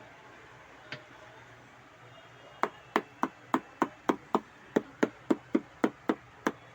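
Pads of a Roland SPD-20X electronic percussion pad struck by hand or stick, giving dry knocks: one tap, then a steady run of about three to four taps a second starting a little over two seconds in.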